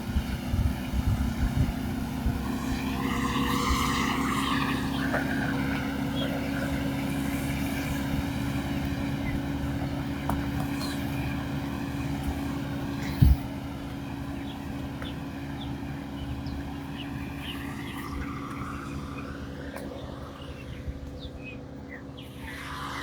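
A motor running steadily with an even hum, with one short thump about thirteen seconds in.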